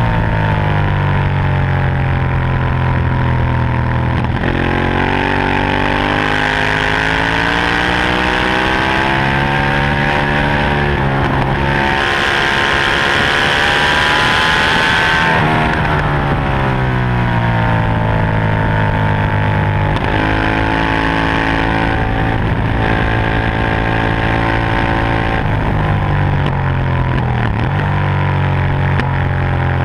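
Ducati 1198's L-twin engine at racing speed, rising in pitch through each gear with a short break at every change and dropping in pitch under deceleration. About halfway through, a loud rushing noise briefly rises over the engine.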